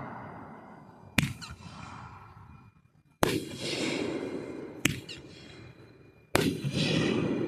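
Fireworks going off: four sharp bangs, each followed by a long fading rumble.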